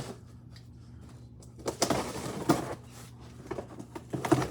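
Cardboard box being handled: a few short rustles and knocks, the loudest just under two seconds in, over a low steady hum.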